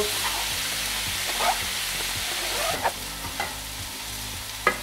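Chicken, vegetable and mango stir-fry sizzling steadily in a hot wok, with a wooden utensil scraping and knocking against the pan as it is stirred; the sharpest knock comes near the end.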